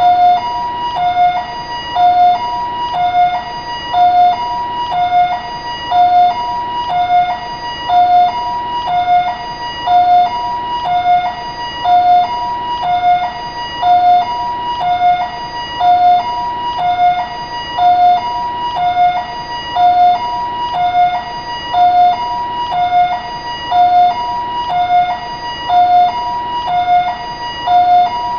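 Taiwanese ambulance siren sounding steadily in its two-tone pattern, switching evenly between a low and a high note at roughly one low-high pair a second.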